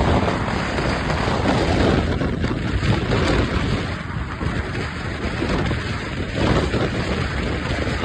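Wind rushing and buffeting over the microphone, with road noise from a car at highway speed.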